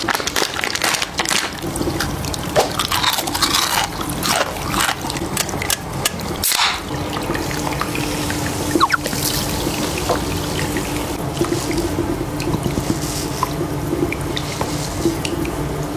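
Water splashing and trickling during a head-spa hair wash, with many irregular splashes in the first half; after a sudden change about six and a half seconds in, a steady low hum runs under scattered drips.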